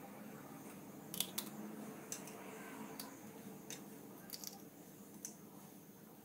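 Faint small clicks and light wet squishing of eggshell halves being handled as an egg yolk is passed between them to separate it from the white, over a low steady hum. The clicks come singly and irregularly, a few a second at most, the loudest a little over a second in.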